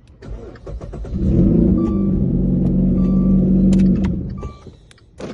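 Dodge Dart engine cranking briefly and starting on a freshly programmed key, running loud and steady for about three seconds after it catches, then dropping away near the end.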